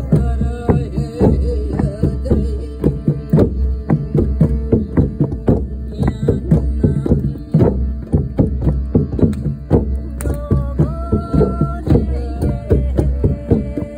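Several hand drums played together in quick, dense strokes over the steady drone of a shruti box. About ten seconds in, a higher held note joins for a second or so.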